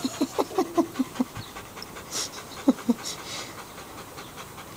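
Dog panting: a quick run of short breaths, about five a second, for the first second and a half, then two more breaths a little before the three-second mark.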